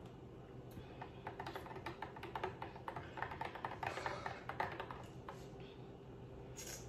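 Thick, half-frozen fruit smoothie being slurped through a straw: a run of rapid, irregular crackling clicks as slush and air are drawn up the straw, for about four seconds from just under a second in.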